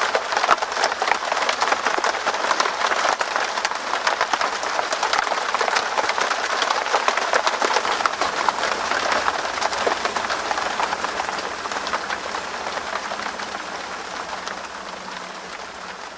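Rain falling on a tent's fabric: a dense, continuous spatter of countless small drops. It holds steady, then slowly fades over the last several seconds.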